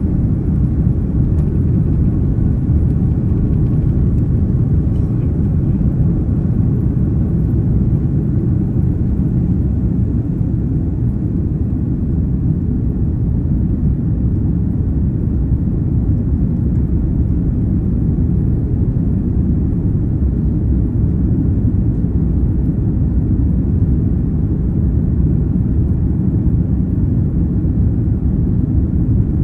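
Airbus A330-200 engines at takeoff power, heard inside the passenger cabin as a steady, loud, deep rumble with rushing air through the takeoff run and initial climb.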